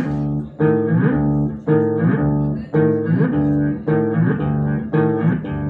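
Live experimental instrumental music from a modular synthesizer and effects-processed bass guitar: a pitched, plucked-sounding figure repeats about once a second, each note opening with a quick upward slide.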